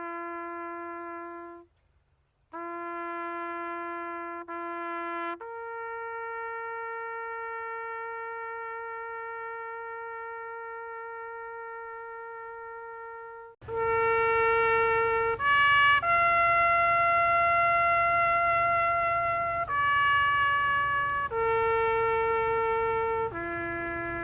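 Music: a slow melody of long held brass-like notes, each note steady for one to eight seconds, with a brief break about two seconds in. About two-thirds of the way through the notes grow louder over a low hum.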